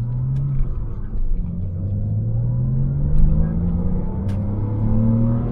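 Porsche Cayman S flat-six engine running under load with its intake noise prominent, the pitch dipping briefly about a second in and then rising steadily as the car gains speed.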